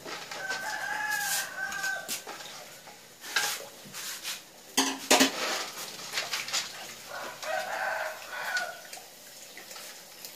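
A rooster crows twice, each crow about a second and a half long, once at the start and again about seven seconds in. Between the crows, snail shells knock against a steel bowl as they are handled, the loudest knocks about five seconds in.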